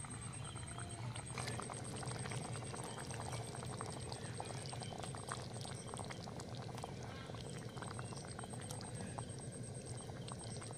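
Thick spiced coconut-milk and yogurt gravy simmering in a metal pan, a dense crackle of small bubbles popping, which picks up a little over a second in.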